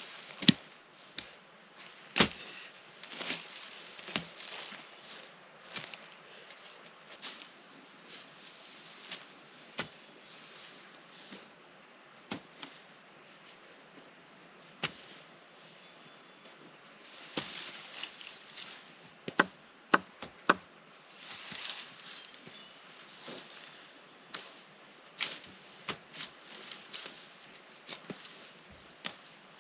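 Insects chirping in a steady high trill that grows louder about seven seconds in, with sharp knocks scattered through it, a few of them loud.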